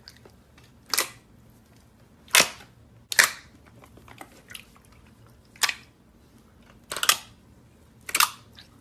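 Clear slime being pressed and folded by hand, giving six sharp pops at irregular intervals as air trapped in it bursts.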